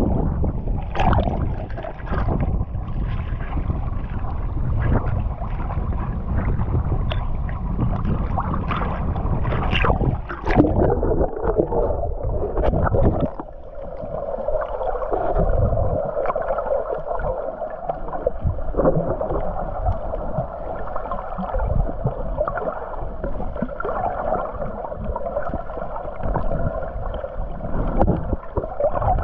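Muffled underwater sound from a GoPro submerged while snorkeling: water sloshing and gurgling against the camera, with a few louder bubbly bursts in the first half. In the second half it settles into a steadier dull hum.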